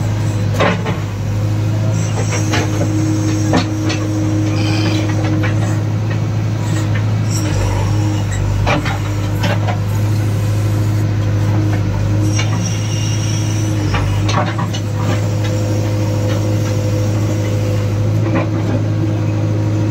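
JCB 3DX backhoe loader's diesel engine running steadily under working load, heard from the operator's seat. The backhoe bucket scrapes and knocks against broken brick and soil many times, with a thin high whine coming in twice.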